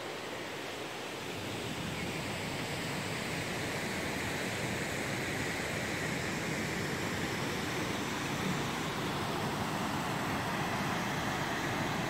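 Steady rushing of the Selkefall waterfall and the shallow rocky stream below it, growing gradually louder over the first few seconds.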